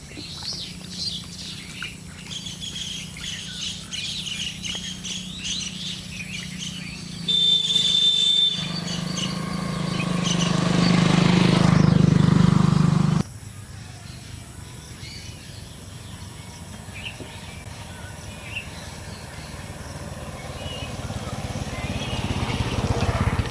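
Birds chirping over a low steady hum. About seven seconds in a steady high tone starts, then a loud rushing noise swells and cuts off abruptly about thirteen seconds in. Faint chirps follow.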